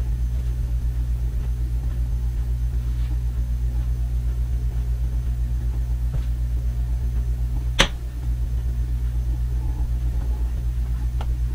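A steady low hum with a slight even pulse, and one sharp click nearly eight seconds in.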